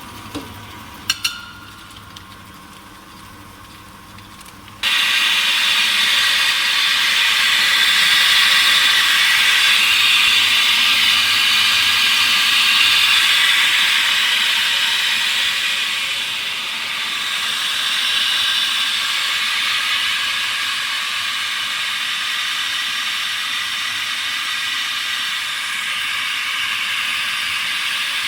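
Corn grits making machine (maize grinder) running with a loud, steady hiss-like noise that starts abruptly about five seconds in. Before that there is a quieter stretch with a couple of sharp clicks about a second in.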